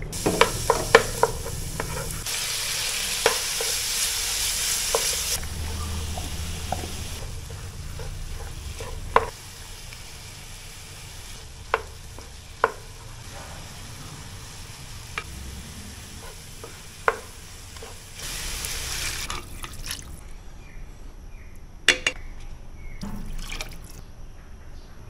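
Food sizzling in a pot, the sizzle coming and going, with a wooden spoon stirring and now and then knocking against the pot.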